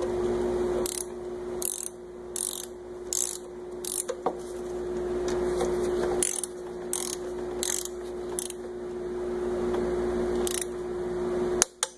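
Ratchet-head torque wrench being worked on the castellated connecting rod nuts of a Farmall C engine, drawing them down to torque: a run of ratcheting strokes with pauses between them, over a steady hum.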